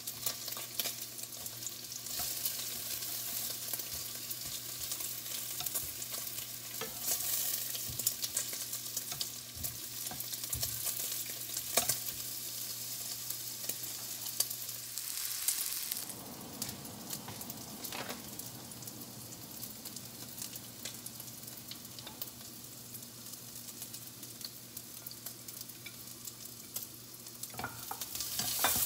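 Food sizzling and frying in a nonstick frying pan, with scattered sharp clicks and pops. Chopsticks stir and scrape in the pan near the start and again near the end, and a steady low hum stops about halfway through.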